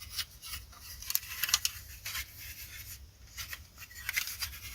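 Handling noises from a propane heater's bottle stand as its fold-out feet are pulled out: scraping, rubbing and a scatter of light clicks.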